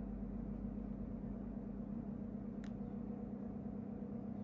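Steady low electrical hum of room tone, with one faint click about two and a half seconds in.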